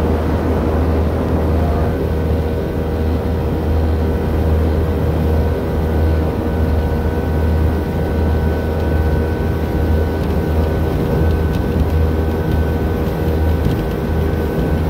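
Jet boat's outboard motor running steadily at speed under way upriver: a constant deep drone with a steady higher whine on top, over the rush of water past the hull.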